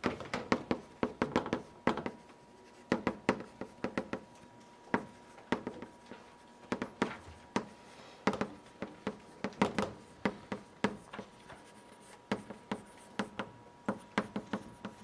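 Chalk writing on a blackboard: irregular clusters of quick, sharp taps and short scratches as each stroke is made, with brief pauses between groups.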